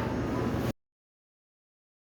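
Steady rumbling background noise that cuts off abruptly less than a second in, followed by dead silence.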